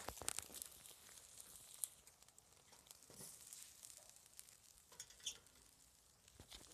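Faint crackling of a wood fire burning under a grill basket of meat, with scattered sharp pops and ticks, a few louder than the rest.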